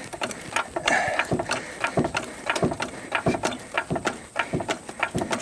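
A jack being worked to lift a van, its ratchet and metal parts clicking and knocking in a quick, uneven run.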